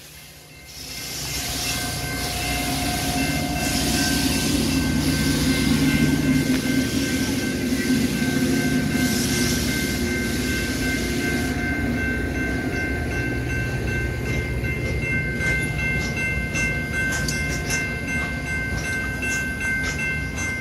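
Railroad passenger coaches rolling slowly past close by: a steady rumble of wheels on rail that builds up in the first second, with a thin steady high-pitched whine over it. Near the end come sharp rapid clicks of the wheels.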